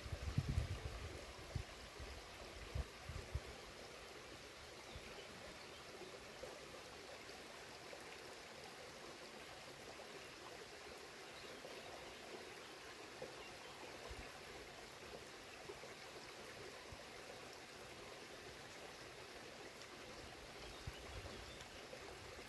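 Rushing water of a woodland waterfall and stream, a steady even hiss. A few low thumps fall in the first few seconds and again near the end.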